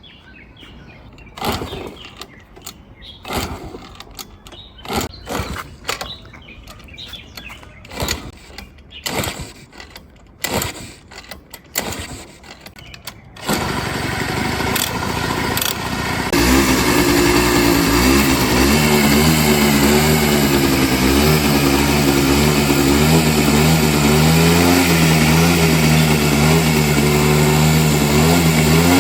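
Motorcycle kick-started after it would not start: about a dozen short knocks of the kick-starter strokes, then the engine catches about 13 seconds in and settles into a steady idle about three seconds later.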